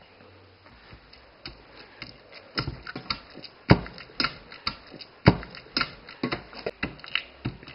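Potato masher working boiled potatoes in a pan: irregular knocks and clicks of the masher against the pan, a couple a second, starting about two and a half seconds in after a quiet start.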